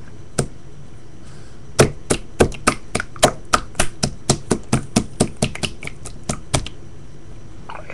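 Thin, watery slime being squeezed and pressed in a hand, giving a run of sharp wet clicks and pops, about three or four a second, starting about two seconds in and stopping near the end.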